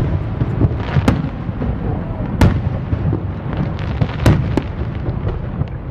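A continuous low rumble full of crackling, broken by sharp loud bangs every second or two, the strongest about a second in, near the middle and about two-thirds through.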